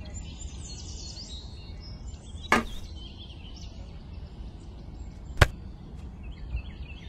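Two sharp knocks about three seconds apart, like something being struck in miniature construction work, over a low steady rumble with birds chirping in the background.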